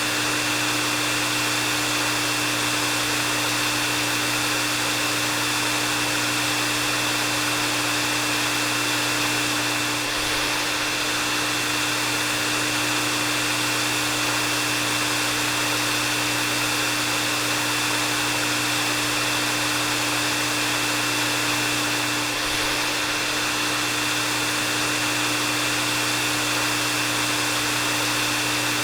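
Hair dryer running steadily: a constant rush of blown air with a steady low hum and a thin, steady whine above it.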